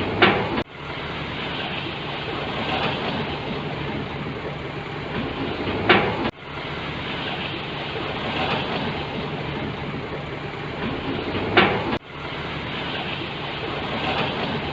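Diesel engine of heavy construction machinery running steadily. Three times, about six seconds apart, a short rising surge ends in a sudden cutoff.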